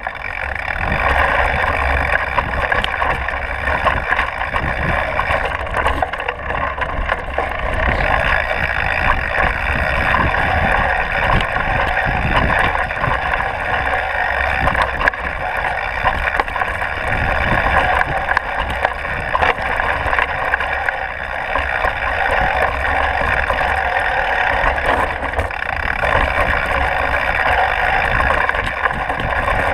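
Mountain bike ridden fast down a rocky dirt trail: a steady rush and rumble of tyres over dirt and stones, with many small knocks and rattles from the bike as it hits rocks.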